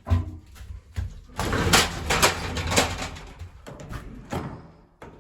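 Elevator arriving at its floor: a thump, then the doors sliding open with a rattling, squeaky run of noise for about two seconds that fades away.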